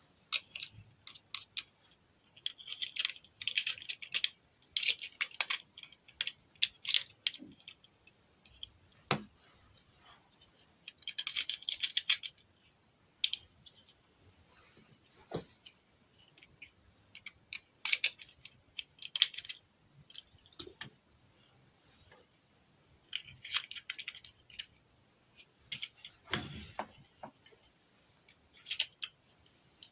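Plastic toy pieces and packaging being handled: irregular small clicks, taps and short bursts of crinkling, with a few duller knocks.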